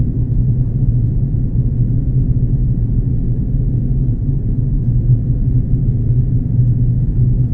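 Steady low rumble heard inside the cabin of an Airbus A330 airliner: the engines and the air rushing past the fuselage, even and unchanging.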